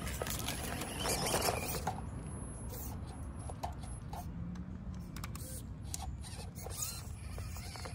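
Small 1/24-scale FMS FCX24 RC crawler running over rough ground: its tires scrape and crunch, with scattered clicks and short squeaks from the little drivetrain.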